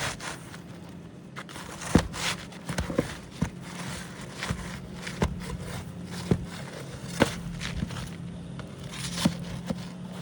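Irregular sharp taps, clicks and light scrapes as an asphalt roof shingle is handled and pried at to free it from a nail, with the loudest taps about two seconds and about seven seconds in.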